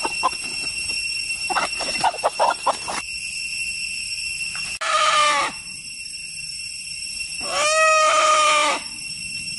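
A rooster crowing twice: a short call about five seconds in, then a longer, drawn-out crow near the end.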